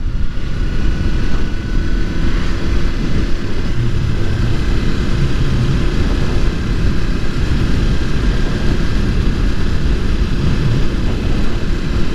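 Motorcycle on the move: steady rushing wind over the helmet microphone, heaviest in the low end, with the engine and road noise running underneath.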